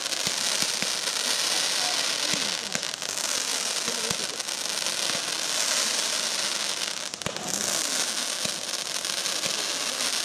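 Ground-fired fireworks shooting up streams of sparks, hissing with a dense, continuous crackle and many scattered sharp pops.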